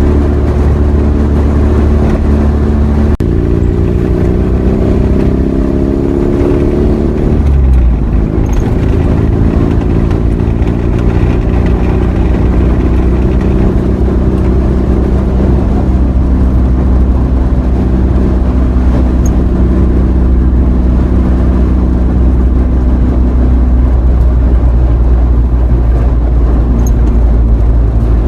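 Vehicle engine and road noise while driving. The engine pitch climbs as it accelerates from about three to seven seconds in, then drops and settles to a steady cruise.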